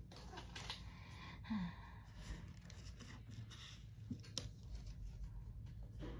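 Quiet room with faint handling noise from trading cards: soft rustles and scattered small clicks, plus a short low sound from a voice about one and a half seconds in.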